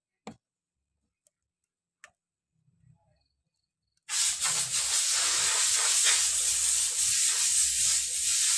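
A few faint clicks, then about four seconds in a loud, steady hiss of air or spray under pressure starts suddenly, with a low hum beneath it.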